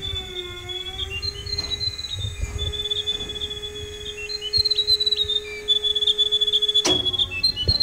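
KiwiRail diesel-electric locomotive standing at idle: a low steady hum under a high, warbling whistle-like tone. A sharp click a little before the end cuts off the hum.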